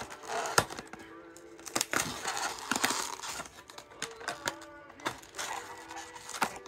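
Fingernails picking and prising at the perforated cardboard door of an advent calendar: irregular clicks, taps and scrapes of card as the door is worked open.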